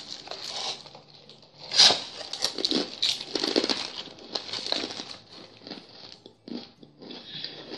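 A plastic fortune-cookie wrapper being crinkled and torn open by hand, in a run of irregular rustles that are loudest in the first half.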